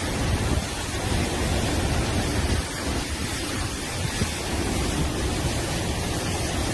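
Strong dust-storm wind blowing over the microphone: a steady rushing noise with uneven, gusty rumble in the low end.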